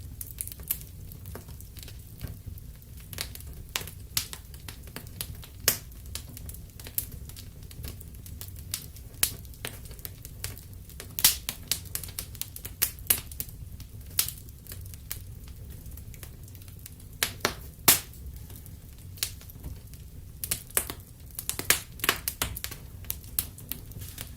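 Wood fire in a fireplace crackling, with irregular sharp pops and snaps, several a second at times, over a steady low rumble of the burning fire.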